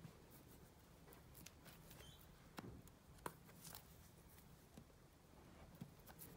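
Quiet handling of a small paperboard Apple Magic Mouse box: faint taps and rubs of fingers on the box, with sharper clicks about two and a half and three seconds in, over a faint low hum.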